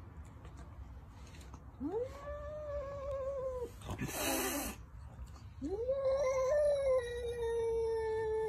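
Domestic cat giving two long, low warning yowls, each rising at the start and then held, the second longer and sliding slightly down, with a short hiss between them about halfway through: an aggressive threat call at its own reflection in a mirror.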